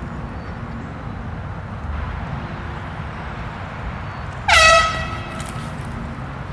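An air horn blasts once, suddenly and loudly, about four and a half seconds in. Its pitch slides down sharply as it starts, then holds briefly before it cuts off.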